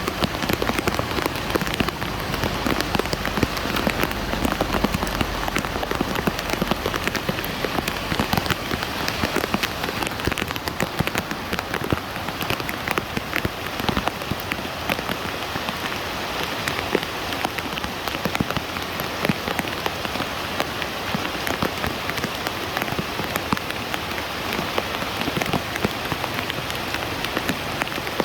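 Steady rain falling, a dense hiss of noise sprinkled with many small drop hits.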